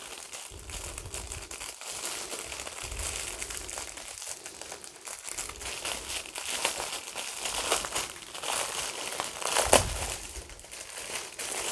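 Plastic packaging of a diamond-painting kit crinkling and rustling as it is handled, with a louder crackle near the end.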